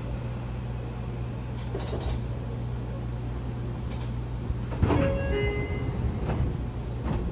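Seibu 40000-series electric train standing at a platform, its onboard equipment giving a steady low hum. About five seconds in, the passenger doors slide open with a sudden thud, followed by a brief set of tones from the door chime.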